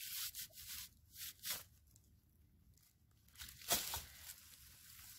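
Evergreen boughs rustling and swishing as a bundle of them is gathered up and handled: a few short bursts at first, then a louder one past halfway.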